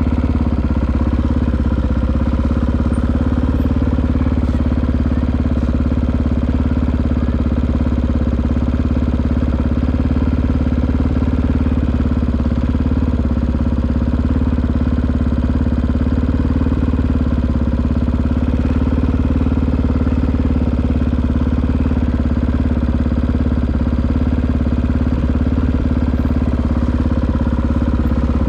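Honda XR650R dirt bike's big single-cylinder four-stroke engine running steadily at idle, with an even, unchanging note.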